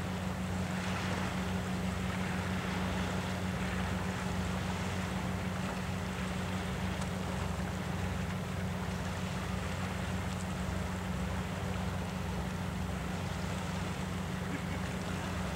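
A steady low machine drone, like a running engine, holds an even pitch throughout, over a continuous hiss of wind and sea.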